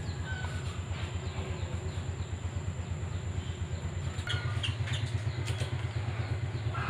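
A motor running steadily at idle with a fast, low throb. A few short bird chirps come about four to five seconds in.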